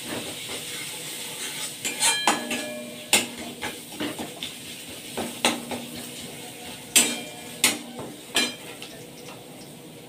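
A spatula knocking and scraping against a steel kadai as a ground-spice masala (ginger-garlic, onion, cumin, coriander, turmeric and chilli) is stirred and fried, over a soft sizzle. Several sharp clanks ring briefly, the loudest about seven seconds in, and the stirring stops shortly before the end.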